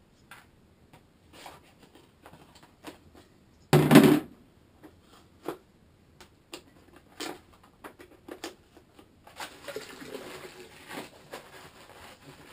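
Cardboard box of canning salt being opened and handled, with scattered rustles and clicks and one short loud burst about four seconds in. From about nine seconds in, a steady pouring hiss as the salt is tipped from the box into a bucket of water to make pickling brine.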